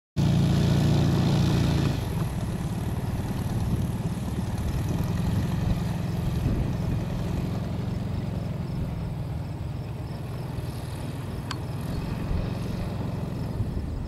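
Hummel Bird ultralight's small piston engine and propeller running at low taxi power. The sound is a little quieter after about two seconds and then steady.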